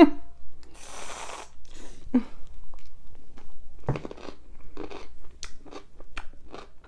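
An aerosol can of whipped cream hisses for under a second as cream is sprayed onto a tiny sour pickle. Then the pickle is bitten and chewed in a run of crisp, separate crunches, picked up close by a clip-on mic.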